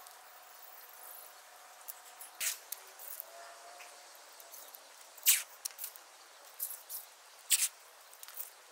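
A handful of short, sharp scratching or scraping sounds spread through, the loudest a little past halfway, over a faint steady hum.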